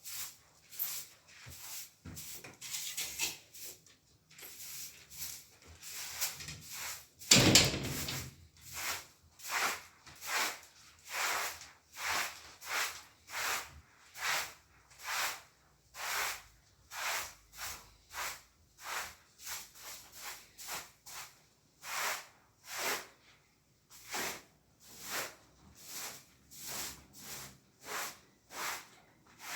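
Rhythmic scraping or rubbing strokes, about one and a half a second and fairly even, with one louder, heavier scrape about seven seconds in.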